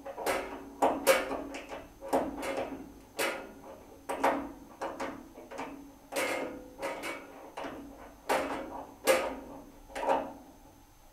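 Metal tool clanking on a steel panel radiator's valve fitting as it is worked on: irregular metallic knocks, about two a second, each with a brief ringing tone.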